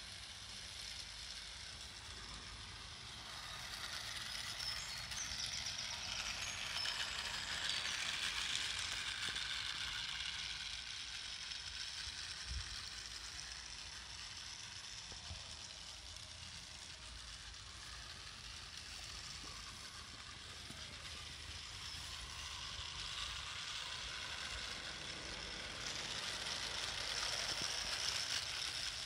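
Large-scale garden model train, a model diesel locomotive pulling freight wagons on outdoor track, running with a steady mechanical rattle of wheels and gearing. It grows louder twice: a few seconds in, and again near the end as it passes close.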